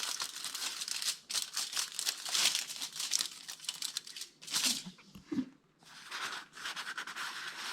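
Craft material being crumpled and crinkled by hand: a dense crackling rustle with a short break about three quarters of the way through.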